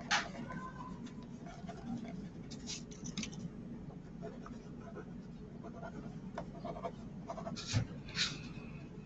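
Mechanical pencil scratching on paper in a few short strokes, brief scrapes spread through with quiet gaps between.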